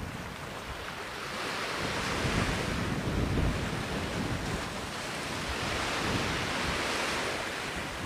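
Sea surf and wind: a steady rush of breaking waves that swells twice, with low wind rumble buffeting the microphone. No bird calls stand out.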